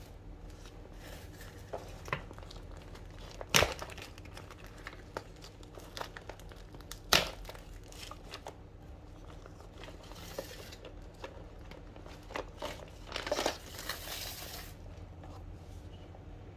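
Packaging crinkling and rustling as a toy handbag set is unpacked by hand. There are two loud sharp knocks, about four and seven seconds in, and a longer rustle about three-quarters of the way through.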